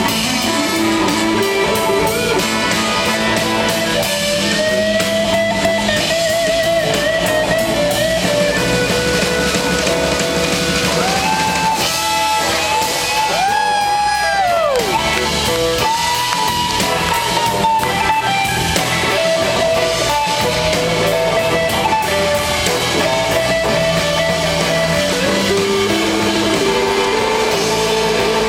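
Live blues-rock band playing an instrumental passage: an electric guitar lead with long, wavering notes that slide in pitch over drums and bass.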